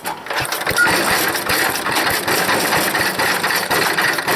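Wood chipper's small gasoline engine catching suddenly and running on full choke. The owner thinks the carburetor has a bad float.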